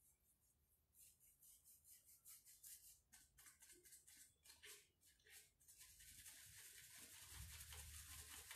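Faint scratching of a paintbrush's bristles dabbing and scrubbing paint into rough wood, in quick strokes a few a second that run together into a steady scrubbing about six seconds in.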